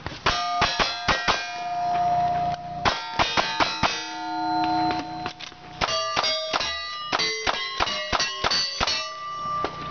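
Rapid gunshots from a revolver and then a rifle, each hit followed by the bright ringing of a struck steel plate target. The shots come in quick strings, with a gap of about two seconds in the middle while the ringing carries on.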